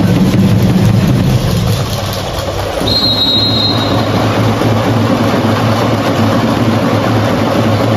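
Steady low hum of a large sports hall, with a short, high referee's whistle blast about three seconds in.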